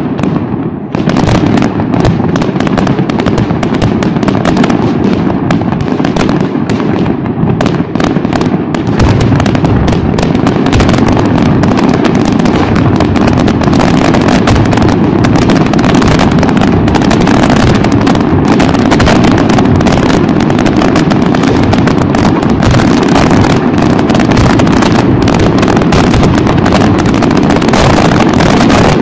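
Fireworks display: rapid aerial shell bursts and crackling, thickening about nine seconds in into a continuous barrage of bangs.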